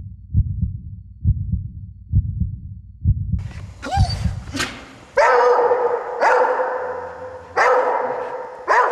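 Low double thumps like a heartbeat, repeating about once a second, then from about three seconds in a dog barks loudly, about once a second, each bark ringing on briefly.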